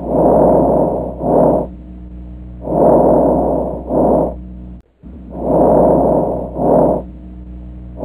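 Normal vesicular breath sounds heard at the chest through a stethoscope: a low-pitched rustling. Each breath in is long and is followed at once by a short breath out, and three breaths come at an even pace over a steady low hum.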